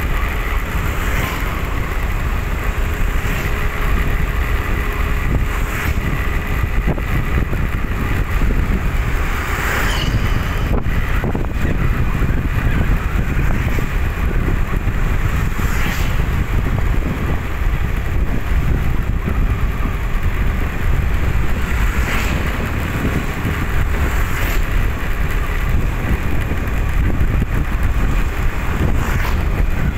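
Steady wind rumble on the microphone and road noise from riding along a street, with a few vehicles passing now and then.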